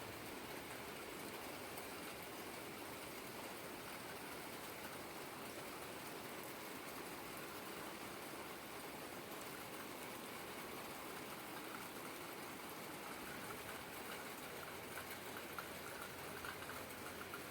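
Steady rain falling, an even hiss with a few separate drops standing out near the end.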